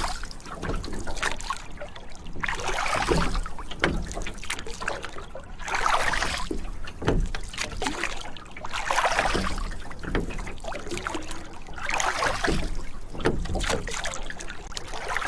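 Rowboat being rowed: oars dipping and pulling through the water in a slow, even rhythm, with a swishing splash about every three seconds and short knocks between the strokes.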